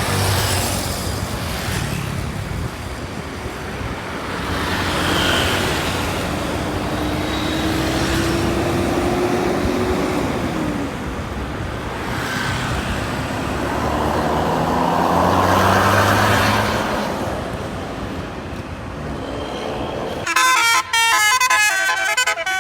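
Road traffic with heavy vehicles passing, their engines and tyres swelling and fading. Near the end a bus's multi-tone telolet horn plays a loud, fast tune of quickly changing notes.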